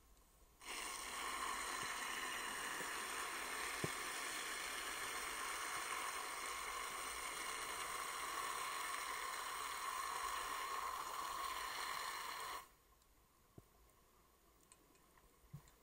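Scuba diver's exhaled air bubbling out of the regulator underwater: a steady rushing hiss that starts abruptly about half a second in and cuts off sharply about three seconds before the end.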